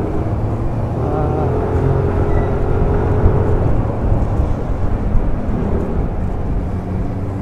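Wind buffeting a rider's microphone on a moving motorcycle, a steady low rumble with the engine's drone faintly underneath.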